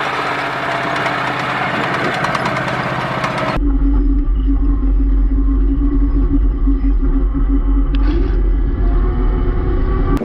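Diesel engine of a tracked Strela-10 air-defence vehicle running steadily. About three and a half seconds in, the sound changes abruptly to a deeper, heavier rumble with a steady hum over it.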